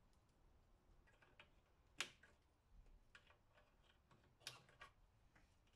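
Plastic clicks and light rattling of 6-pin and 8-pin GPU power cable connectors being handled and pushed into the power sockets on a mining motherboard: a sharp click about two seconds in and two more near the end.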